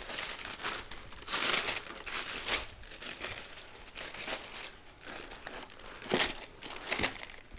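Packaging crinkling and rustling as it is handled, in irregular bursts. The loudest stretch comes about a second and a half in, and there are two sharper crackles near the end.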